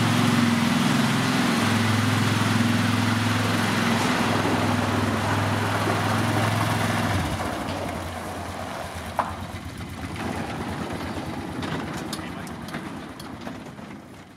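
A 2003 Polaris Sportsman 500 HO ATV's single-cylinder four-stroke engine running steadily at low speed as it pulls away, loud and close for about seven seconds, then fainter and farther off.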